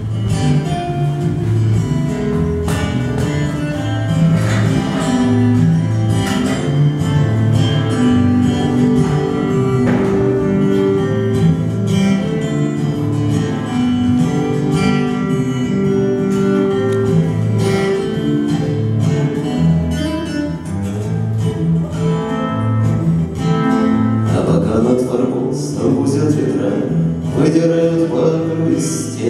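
Acoustic guitar strummed and picked in an instrumental passage of a song, with chords changing every few beats.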